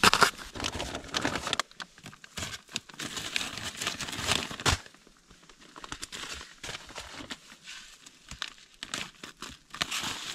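Snow being scraped and chipped out of a niche in an igloo's snow-block wall with a small hand tool, scratchy strokes that are densest in the first second and a half and stop near the middle. After that come fainter, scattered crinkling and rustling sounds as small items are handled.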